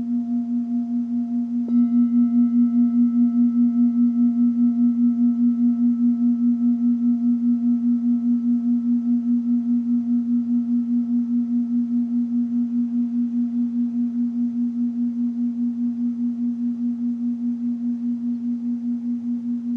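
Singing bowl ringing with a low hum that pulses in a steady wah-wah beat. It is struck again about two seconds in, which brings out brighter overtones that slowly fade as the hum rings on.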